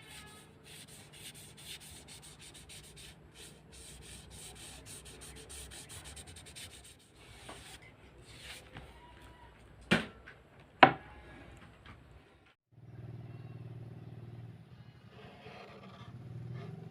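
Rubbing and scraping on wood for several seconds, then two sharp wooden knocks about a second apart, the second the louder. A steady low hum follows near the end.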